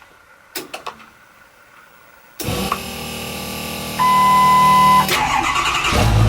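Ford Powerstroke diesel truck starting. A couple of clicks, then a steady mechanical hum cuts in, and a steady beep sounds for about a second. Near the end the engine catches and runs much louder and deeper.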